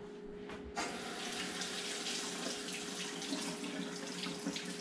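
Kitchen faucet turned on about a second in, then a steady stream of tap water running into the sink over raw pork held under it to rinse it.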